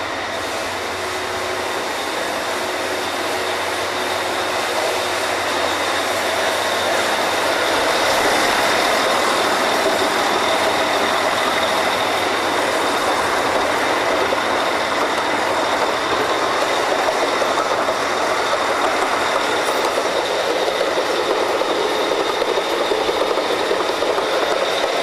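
Loud, steady machinery noise of a working drilling rig, growing louder over the first several seconds, with a steady high-pitched whine running through it.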